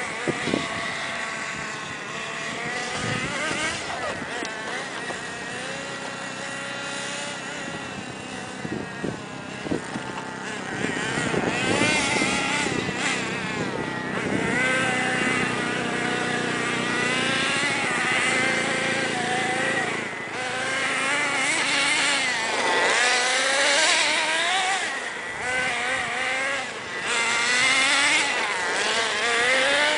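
Small nitro engine of a Redcat Volcano S30 RC monster truck, running and revving up and down in a high, wavering pitch as the truck drives. It gets louder about a third of the way in.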